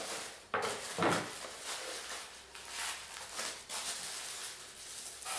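Tissue paper rustling and crinkling as hands dig through it in a cardboard shoe box, with sharper crinkles about half a second and a second in.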